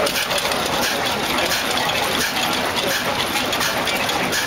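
Hornsby-Ackroyd hot-bulb oil engine running, its flywheel turning, with a steady metallic clatter from its moving parts.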